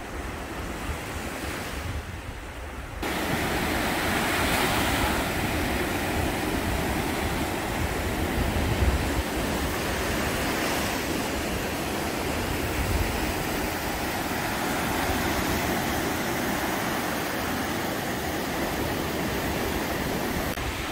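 Gulf of Mexico surf breaking and washing up the beach in a steady rush, with wind buffeting the microphone. It gets louder about three seconds in.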